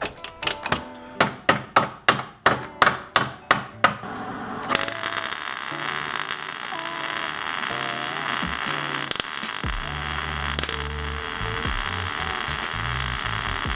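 A ratchet strap being cranked tight, about three sharp ratchet clicks a second, pulling a cracked car subframe together. Then, just under five seconds in, an arc welder strikes up and runs a steady, hissing, crackling weld bead along the crack in the steel subframe.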